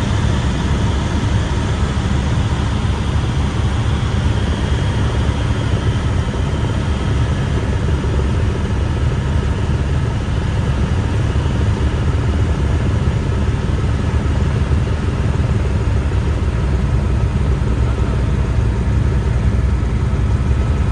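Steady engine and airframe drone inside a light aircraft's cabin in flight: a deep, even rumble with a faint steady whine above it.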